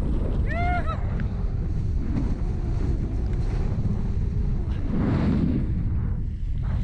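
Strong wind buffeting the microphone as a windsurf board planes through choppy water, with water rushing and slapping along the hull. A louder splash of spray comes about five seconds in.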